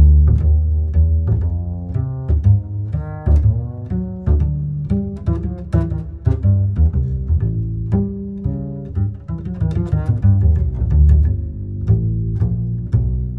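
Music played loud through a Sony Genezi MHC-GT44 mini hi-fi system, dominated by a heavy deep bass line of plucked notes with sharp, regular attacks.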